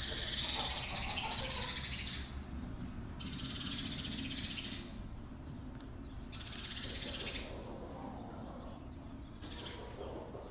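Chicks cheeping together in stretches of one to two seconds with short gaps between, with a hen calling among them near the start.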